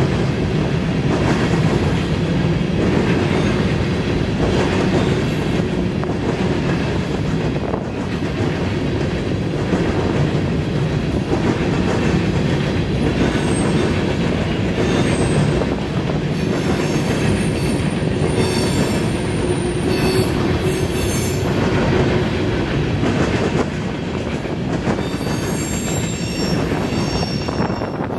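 Freight train of covered hopper cars rolling past, a steady rumble and clatter of steel wheels on the rails. High-pitched wheel squeal comes and goes through the second half.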